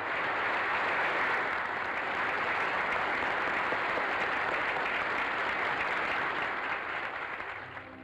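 Large luncheon audience applauding at the close of a speech, a steady dense clapping that thins out near the end.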